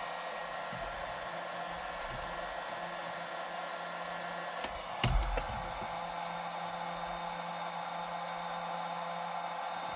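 Heat gun on its low setting, blowing a steady rush of hot air onto a seized steering wheel hub. Two short knocks come about halfway through.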